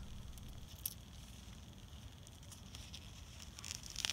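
Faint handling sounds: gloved hands working a seedling pot on plastic mulch film, with a small click about a second in and a few soft clicks near the end.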